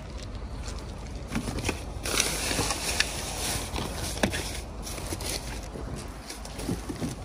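Plastic trash bags and packaged items rustling and crinkling as a gloved hand rummages through a dumpster, with a few sharp knocks as things are shifted, about 3 and 4 seconds in.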